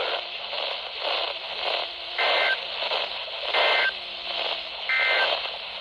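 Three short bursts of Emergency Alert System SAME data tones, a warbling pair of high tones, coming a little over a second apart over a steady static hiss from a weak radio station. The bursts are the digital header that opens an EAS alert.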